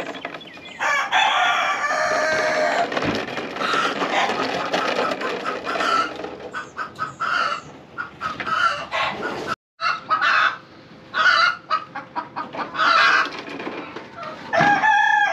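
Chickens calling: a rooster crows in one long call about a second in, and short clucking calls repeat through the rest.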